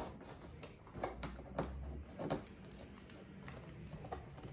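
Hands handling a cardboard box and working open its top flaps: a scatter of light taps, scrapes and clicks.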